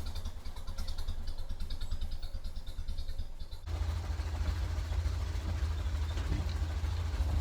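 Ford Model A four-cylinder flathead engine running with an even low pulse, the sound growing fuller about three and a half seconds in. It is running with its intake and exhaust manifolds freshly regasketed to cure an exhaust leak.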